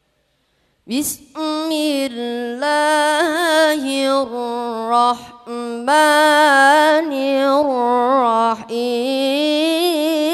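A boy reciting the Quran in the melodic tilawah style into a microphone, starting about a second in: long held notes with wavering ornaments, broken by short pauses for breath.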